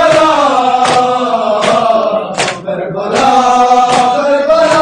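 A group of men chanting a nauha lament in unison, with sharp chest-beating (matam) slaps in a steady rhythm about one every 0.8 seconds. The singing breaks off briefly about halfway through, leaving one slap on its own before the chant comes back.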